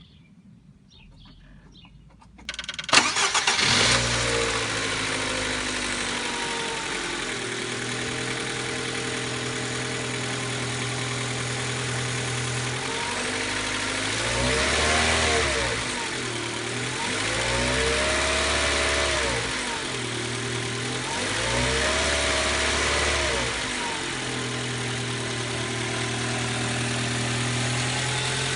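Mitsubishi Colt Z30 engine cranked and starting about two and a half seconds in, then idling, its idle speed settling down slightly over the first few seconds. A little past halfway it is revved up and let back down three times, then returns to a steady idle.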